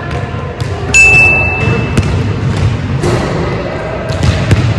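A basketball is dribbled and thumps on a hardwood gym court, with sharp bounce impacts throughout. About a second in, a loud, steady high-pitched tone sounds for about a second.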